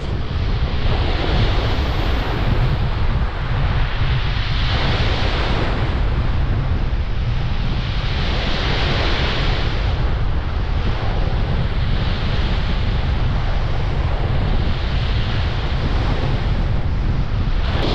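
Rough surf breaking on the shore in surges every few seconds, driven by a strong onshore wind. The wind buffets the microphone as a constant low rumble.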